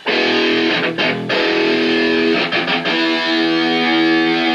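Electric guitar playing chords through an amplifier during a sound check. It stops briefly about a second in, plays a few short choppy chords midway, then lets one long chord ring.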